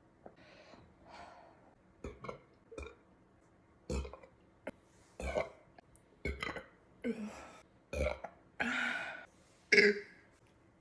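A woman burping repeatedly after chugging carbonated seltzer: a run of short burps starting about four seconds in, roughly one a second, with a longer burp and then the loudest one near the end.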